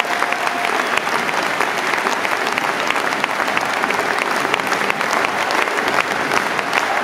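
Large stadium crowd applauding steadily, a dense wash of many hands clapping.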